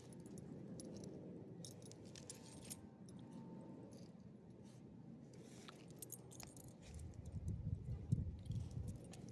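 Small metal pieces jingling lightly in scattered clinks, with a low rumble near the end that is the loudest part.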